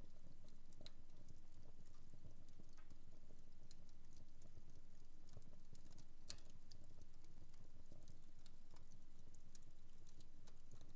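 Fire burning in a fireplace, crackling: irregular sharp crackles and pops over a low, steady background, with one louder pop about six seconds in.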